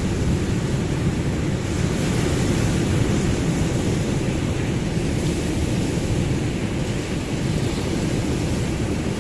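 Ocean surf: a steady, low rushing of waves, swelling slightly about two seconds in.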